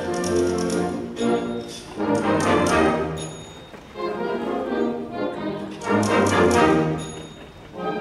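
Concert band playing live in a large hall: brass and woodwinds in short phrases that swell and ease off about every two seconds.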